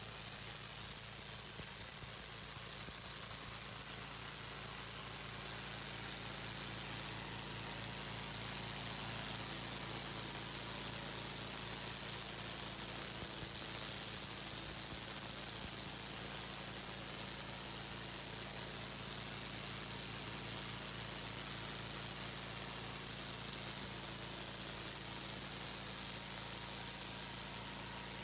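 Mobile pressure washer running steadily: the hiss of the high-pressure jet striking concrete over the steady drone of its 13 hp Honda petrol engine driving the pump.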